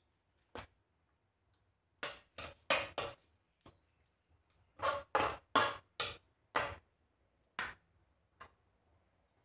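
Bare hands mixing flaked tuna in a stainless steel bowl: about a dozen short, irregular noises, bunched in two clusters, the first about two seconds in and the second from about five to seven and a half seconds in.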